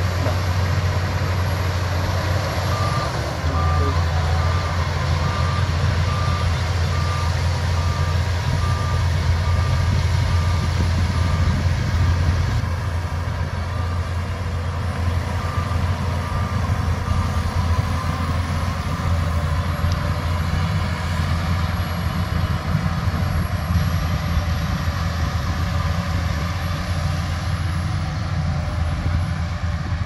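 Shantui crawler bulldozer's diesel engine running steadily as it works, with a reversing alarm beeping at an even pace from about three seconds in until roughly two-thirds of the way through.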